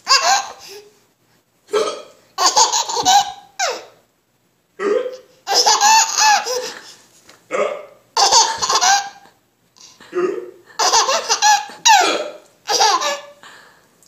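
An adult hiccuping again and again while a baby laughs in bursts between the hiccups, about eight outbursts with short silences in between.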